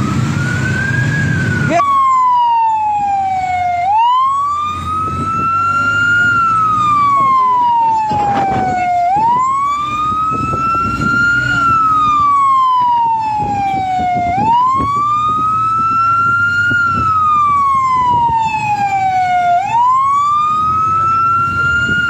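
Fire truck siren wailing: a loud, slow rise and fall that repeats about every five seconds, taken up about two seconds in. The truck's engine and road noise rumble underneath, heard from on board the truck.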